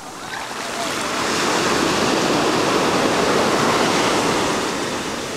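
Ocean surf: a wave breaking and its whitewater rushing up the sand, swelling over the first two seconds and easing off near the end.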